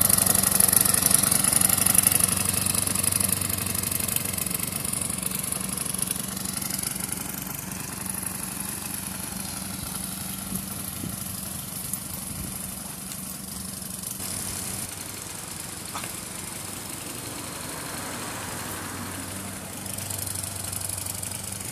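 Small lawnmower engine running steadily on a remote-controlled mower, growing fainter over the first half as the mower moves off, then holding an even hum.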